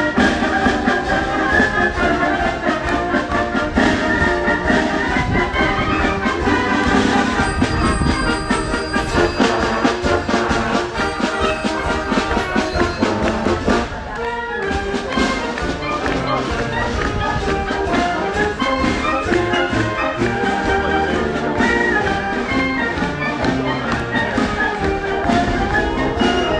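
Concert band with brass instruments playing a piece live, with a brief softer moment about halfway through.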